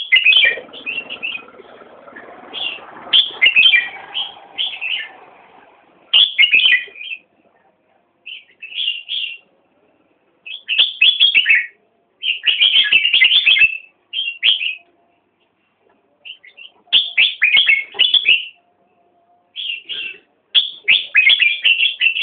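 A bird chirping in bursts of rapid, high chirps, each burst lasting about a second, with short silent gaps between them.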